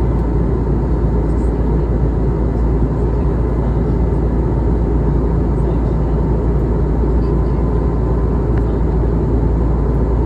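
Steady in-flight cabin noise of an Airbus A320neo: a loud, even rumble of engines and airflow, heaviest in the low range, with a faint steady hum on top.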